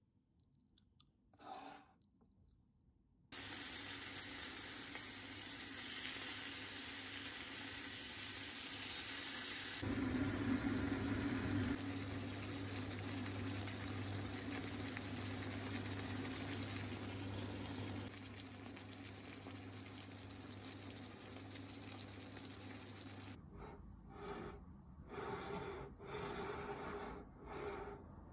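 Steady hiss of a frying pan of pork and vegetables in sauce cooking on an electric hob. It starts suddenly a few seconds in and gets louder partway through, then gives way near the end to a few short, separate sounds.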